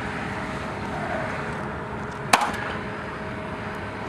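A nail gun fires once, a single sharp shot about two seconds in, driving a nail into a wooden barge rafter over steady outdoor background noise.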